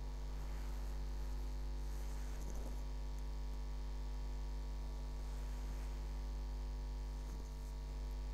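Steady low electrical mains hum with a stack of even overtones, unchanging throughout.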